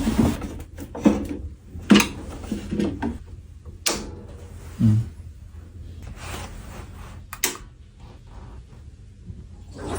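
A few separate clicks and knocks, about five spread over several seconds, from handling the equipment while the water pump's wiring is connected and switched on.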